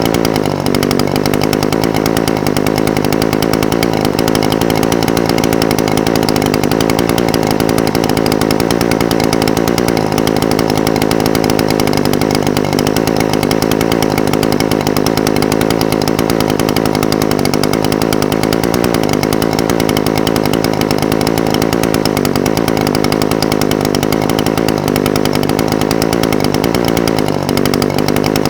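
Echo SRM-420TES brush cutter's two-stroke engine idling steadily, its pitch wavering slightly now and then.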